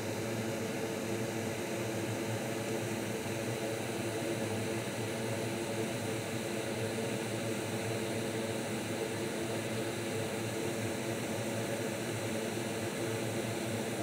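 Steady whoosh of an electric fan with a low hum under it, unchanging throughout.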